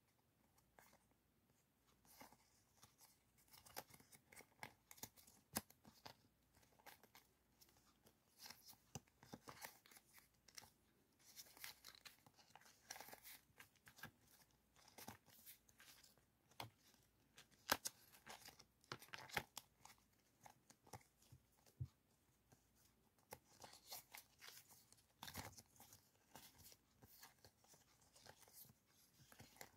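A bundle of die-cut stickers being handled and sorted by hand: faint rustling and crinkling with many irregular sharp crackles.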